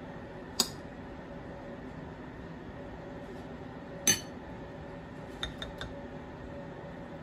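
Metal spoon clinking against plates and bowls: a sharp clink about half a second in, a louder one about four seconds in, then a few light taps a little later, over a steady low hum.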